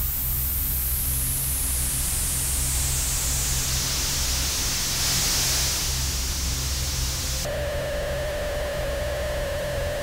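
Horror sound design: static hiss over a low hum, with a high whine slowly falling over the first six seconds. About seven and a half seconds in, the top of the hiss drops away and a steady eerie tone comes in, bending upward near the end.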